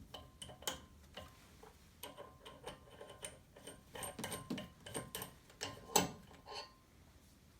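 Irregular series of sharp clicks and light knocks, some leaving a brief ring, with the loudest knock about six seconds in.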